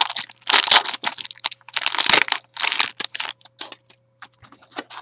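Crinkling of an opened trading-card booster pack's shiny wrapper as the cards are pulled out, several loud crinkles in the first three seconds, then lighter clicks and slides of the card stack being handled.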